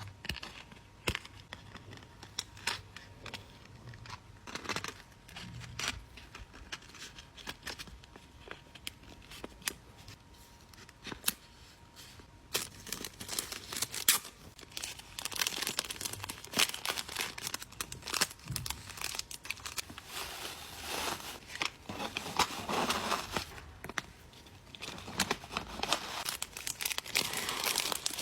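Packing materials being handled by hand as a small order is packaged: scattered light clicks and taps at first, then from about halfway dense rustling and crinkling of paper or plastic wrapping.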